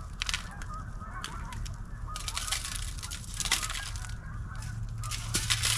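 A flock of geese honking in the distance, many overlapping calls, with a few sharp clicks and crackles close by.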